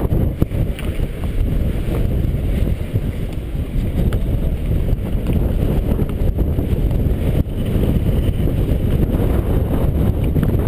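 Strong wind buffeting the microphone in a steady, loud low rumble, with a few faint clicks or knocks.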